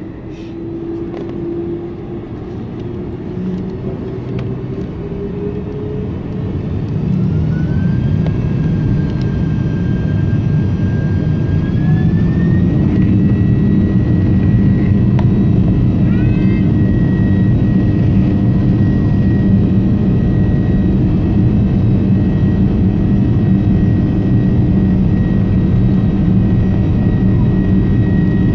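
A Boeing 747-400's four turbofan engines spool up for takeoff, heard from inside the cabin: a rising whine over a growing rumble that levels off at a steady, loud pitch about twelve seconds in as the jet accelerates down the runway.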